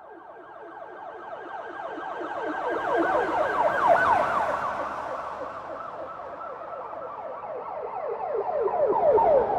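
Police siren in a fast yelp, rapid falling sweeps several times a second. It grows louder to a peak about four seconds in, eases off, then swells to a second loud peak near the end.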